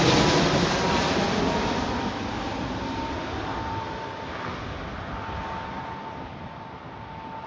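Jet airliner passing and receding: a loud rushing roar with a thin steady whine, fading away steadily.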